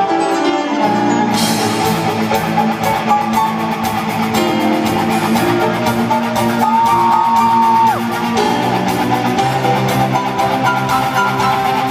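Loud live rock music from a band on stage: electric guitar over a drum kit, with a high lead note held for about a second a little past halfway.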